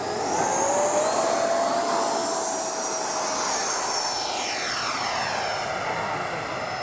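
Two 80 mm electric ducted-fan RC jets at takeoff power: a loud high whine over rushing air. About four to five seconds in, the whine sweeps down in pitch as a jet passes by.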